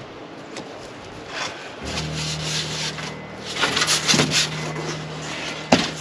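Large, light, thin sheet panels scraping and rubbing against each other and the wooden stand as they are handled and pulled free, with a sharp knock near the end. A steady low hum comes in about two seconds in.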